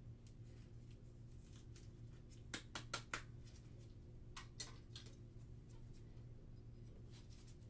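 Hands handling trading cards and a hard plastic card holder: a quick run of four sharp plastic clicks about two and a half seconds in, then two more about a second and a half later, with faint ticks between them over a low steady hum.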